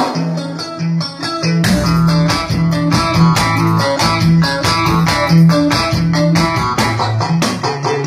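Live instrumental music from an electric guitar and an electronic keyboard: quick picked guitar notes over a repeating bass figure, with a deeper bass coming in about two seconds in.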